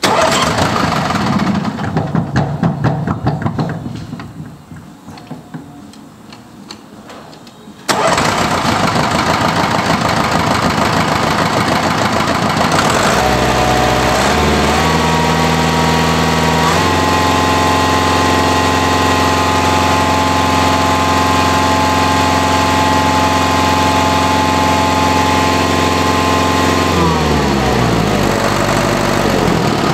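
Hatz four-cylinder diesel engine cranking and firing briefly, then fading out; about eight seconds in it starts suddenly and runs steadily. Its speed is raised in a few steps, held high, and brought back down near the end as the throttle lever is worked.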